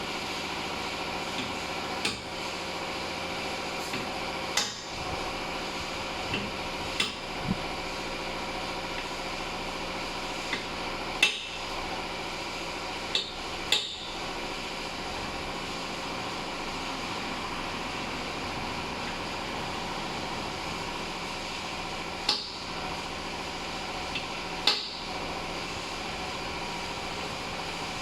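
Scattered metal clinks and knocks as tools and automatic transmission parts are handled during reassembly, about nine irregular hits over a steady background hum.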